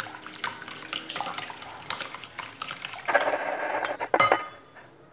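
A plastic wire whisk beating eggs with sugar in a glass bowl: quick clicking and scraping of the whisk against the bowl, louder for a moment before stopping about four seconds in.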